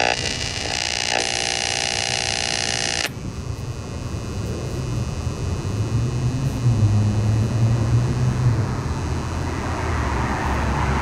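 Telefunken Gavotte tube radio's speaker as the dial is tuned between stations: a buzzing tone for about three seconds that cuts off abruptly, then hiss and static with a low, wavering rumble.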